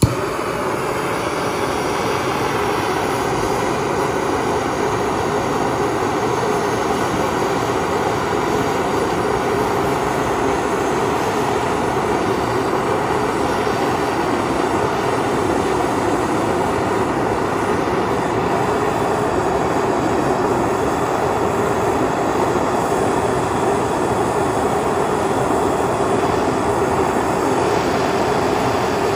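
Handheld gas torch lit and burning with a steady hissing rush of flame, which starts abruptly and holds even. The flame is played against a wooden stick coated with a homemade Starlite-type heat-shield paste.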